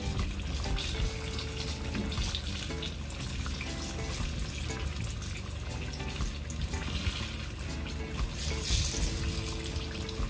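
Vegetable slices frying in hot oil in a pan: a steady sizzle with fine crackles.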